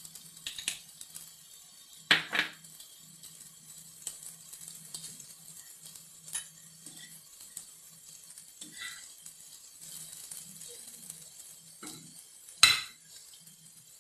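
Metal spatula clinking and scraping on a flat tawa griddle as buttered pav is pressed and turned, with sharp clanks about two seconds in and a louder one near the end.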